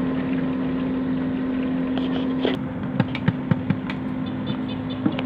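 Fish deep-frying in a wok of hot oil, a steady sizzle with a constant hum beneath. About halfway the hum drops out and the wood fire under the wok gives a few sharp crackles.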